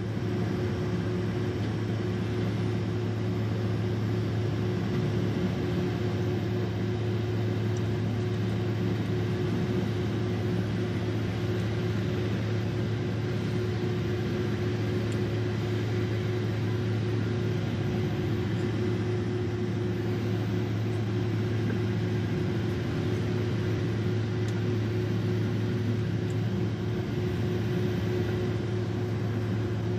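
Cabin noise inside a Boeing 767-300ER holding on the ground with its engines at idle: a steady hum with a low drone and a second steady tone above it, over an even rush of air.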